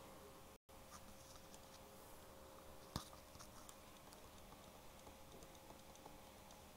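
Near silence: a faint steady electrical hum with soft ticks and taps from handwriting being put on screen, and one sharper click about three seconds in.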